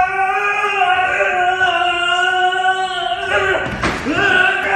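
A voice singing one long held note. About three seconds in it breaks with a swoop down and back up, then is held again.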